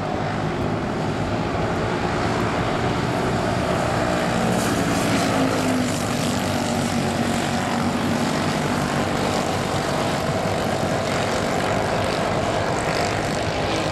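Several small race-car engines running together around an oval track, a steady dense drone with a slight swell a few seconds in.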